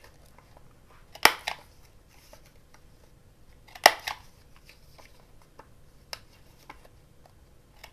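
Two sharp clicks about two and a half seconds apart, with a few faint ticks between, from craft tools and paper being handled.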